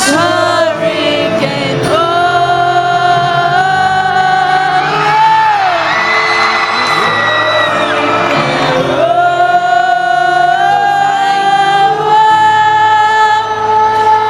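Live acoustic rock performance: a singer holds long, wordless sung notes that slide between pitches, over steady acoustic guitar chords.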